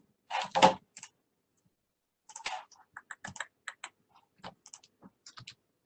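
Computer keyboard typing and mouse clicks, picked up by a video-call microphone: a louder cluster of key strokes about half a second in, then irregular light taps and clicks.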